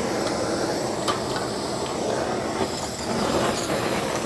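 Gas burner under a paella pan burning steadily with a rushing flame just after being lit, with a faint click about a second in.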